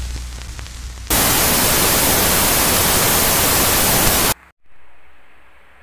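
A loud, even burst of white-noise static, like a detuned television, starting about a second in and cutting off suddenly about three seconds later. Before it there is a lower crackling hum, and after it a fainter hiss that fades away.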